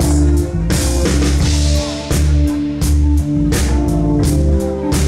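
Live band playing an instrumental passage: a drum kit keeping a steady beat under bass and guitar, with a cymbal crash a little under a second in.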